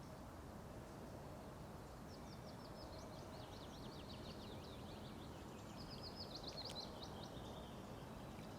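A small bird singing a long, fast run of high chirping notes, starting about two seconds in and going on for about six seconds, over a faint steady background hiss.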